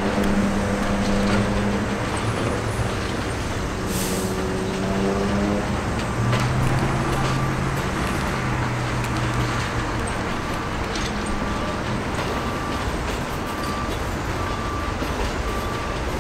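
Budd R32 subway train running on elevated track: a steady rumble of wheels on rail with a humming motor tone that drops to a lower pitch about halfway through. A faint short tone repeats about twice a second in the later part.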